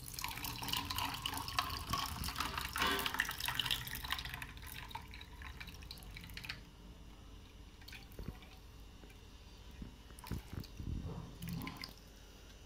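Frothy watermelon juice poured from a jug into a tall glass over ice, splashing for about five seconds before it tails off. A few light knocks follow near the end.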